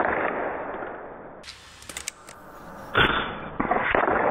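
Air Venturi Avenger .22 PCP air rifle shots, with pellets smashing into apples. A sharp crack fades away in a long rush at the start, and about three seconds in comes another crack, followed half a second later by a second hit.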